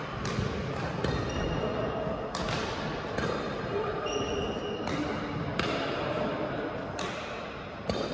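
Badminton rackets striking a shuttlecock, sharp hits about once a second in a rally, with brief squeaks of court shoes between the hits.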